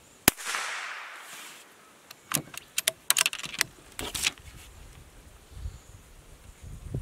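A single shot from a CZ455 bolt-action .22LR rifle with a bare barrel (no muzzle brake), a sharp crack that trails off over about a second. About two seconds later comes a quick run of metallic clicks as the bolt is worked to eject the case and chamber the next round.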